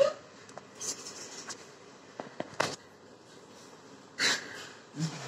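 A few short breathy huffs, snorts and sniffs from a parent and baby at play, with quiet gaps between them; a brief vocal squeak sounds at the start and a short low grunt near the end.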